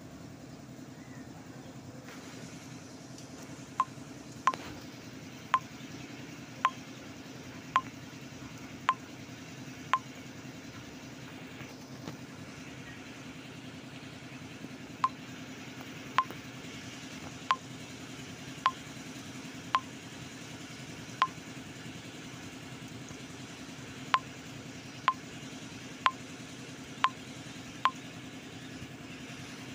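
Short sharp clicks about once a second in three runs, over a steady low hum: a phone's touch-screen tap sounds as menu options are tapped.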